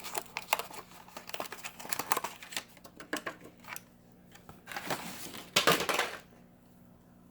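Plastic blister packaging and card crinkling and crackling as a die-cast toy car is worked out of it, with scattered clicks and a louder rustling stretch about five seconds in.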